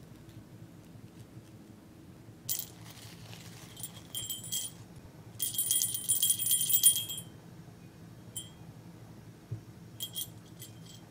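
A small gold jingle bell on a pink cord, shaken by hand, jingling in several short bursts. The longest and loudest comes about five to seven seconds in.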